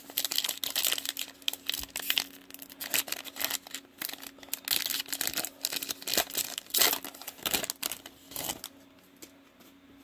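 Plastic wrapper of a Prizm football card pack crinkling and tearing as it is opened by hand, in quick irregular rustles that stop about nine seconds in.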